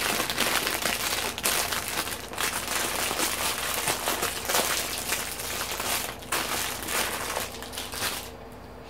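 Plastic packaging crinkling and rustling as it is handled, in uneven bursts, dropping off near the end.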